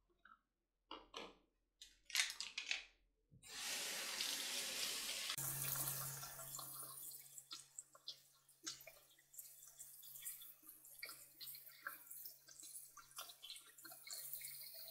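Soapy water poured out of a plastic container into a bathroom sink, a loud rush of about two seconds, after a few light knocks of the container and brushes against the basin. Then the faucet runs with a steady low hum while a bundle of makeup brushes is rinsed under the stream, with small splashes and clicks.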